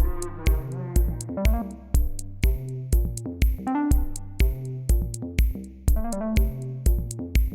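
Electronic music with a drum-machine beat of about two kicks a second, sharp hi-hat ticks, and synthesizer notes over it.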